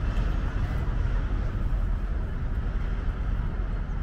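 Steady low outdoor rumble with no distinct events, heaviest in the deep bass.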